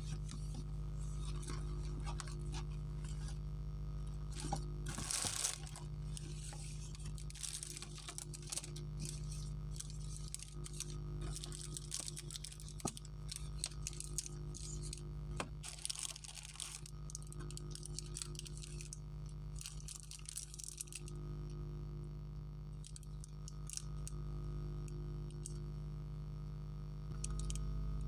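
Chocolate wrapper crinkling and tearing in short, scattered rustles that stop about three-quarters of the way through, over a steady low electrical hum.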